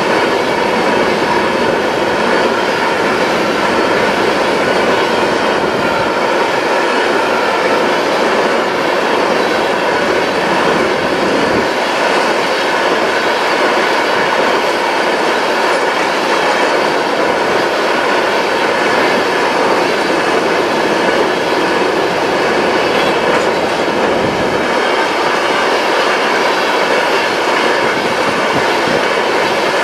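Freight train of tank cars rolling past at steady speed: the continuous sound of steel wheels on rail, with a faint steady high tone running through it.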